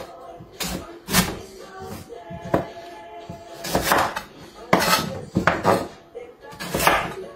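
Chef's knife cutting through parsnips onto a wooden chopping board: irregular knocks and short slicing strokes, about nine in all, over faint background music.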